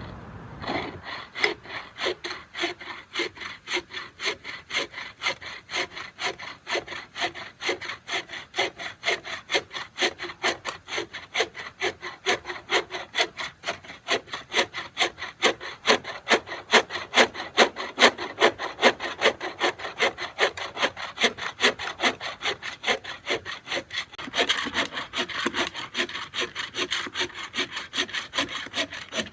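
Hand saw cutting through wood in steady back-and-forth strokes, roughly three a second, turning brighter and rougher near the end.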